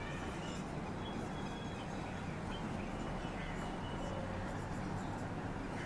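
Marker pen writing on a whiteboard: faint strokes and a few thin squeaks over a steady background hiss.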